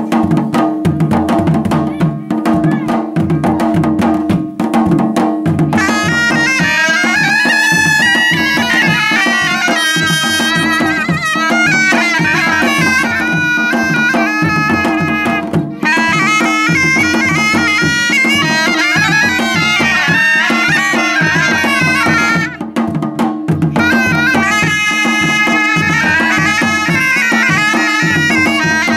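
Two surnai (Balti double-reed shawms) play a loud, winding, ornamented folk melody together over a steady drone and a regular beat on barrel drums. The reeds come in strongly about six seconds in.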